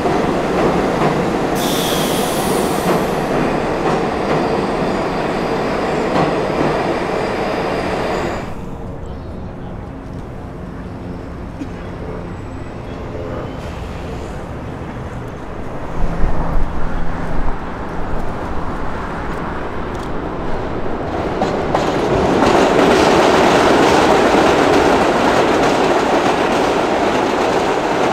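Vintage R33 New York City subway train rolling through an underground station, with a brief high wheel squeal about two seconds in. After a sudden cut, a quieter outdoor stretch follows. From about 22 s the train comes on again and grows loud as it approaches and passes close by on the open track.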